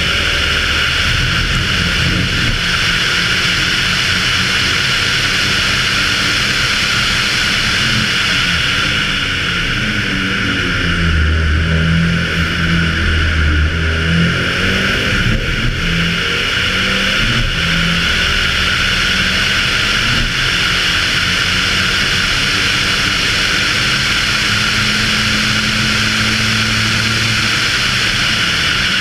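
Audi Quattro A2 Group B rally car's turbocharged five-cylinder engine under hard driving, heard on board, over a steady high hiss. The engine note rises and falls through gear changes and braking around the middle.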